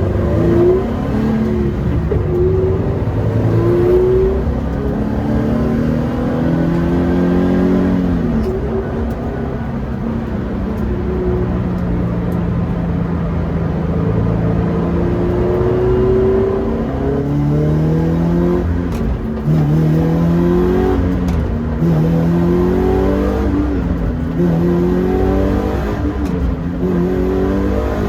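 Toyota 86 (ZN6) 2.0-litre flat-four engine being driven hard on track, its pitch climbing under acceleration and dropping back at each gear change, again and again.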